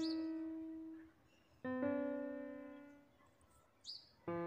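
Slow background piano music: a note struck about every two seconds, each one ringing out and fading before the next.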